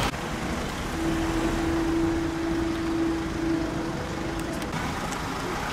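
Road traffic: cars driving past on a street, a steady rumble of tyres and engines, with a steady hum held for about three seconds from about a second in.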